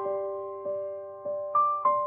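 Background music: a slow, gentle keyboard melody of single notes that are struck, ring out and fade, a new note every half second or so.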